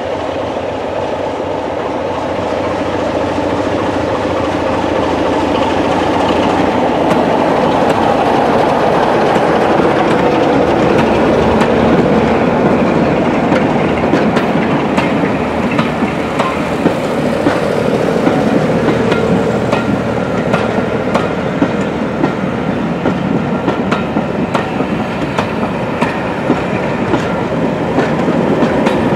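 A diesel-hauled passenger train passing close by, led by a Class 33 locomotive whose engine is working as it pulls out. The coaches' wheels clatter over the rail joints with a run of sharp clicks through the second half, and a second diesel locomotive at the rear comes by near the end.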